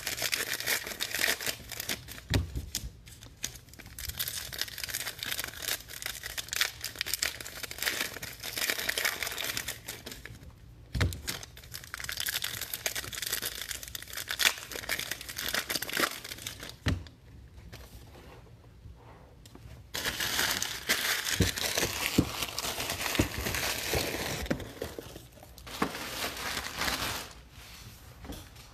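Foil wrappers of 2018 Illusions football card packs being torn open and crinkled by hand, in bursts with a few short pauses and occasional soft knocks.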